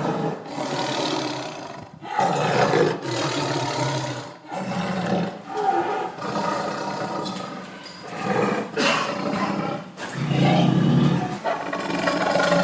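A large zoo animal calling loudly, a run of about ten calls of roughly a second each with brief breaks between them.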